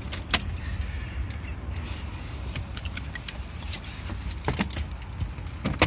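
Steady low rumble of a car's engine and road noise heard inside the cabin, with a few sharp clicks scattered through it.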